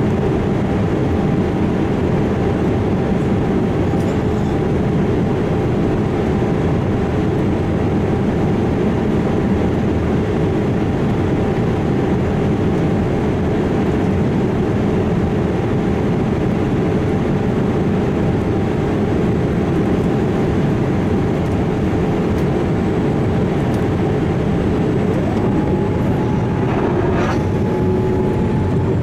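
The jet engines of a Boeing 787-8 airliner running steadily: a loud, even rush with a steady whine. About two seconds before the end, a short tone rises and then holds.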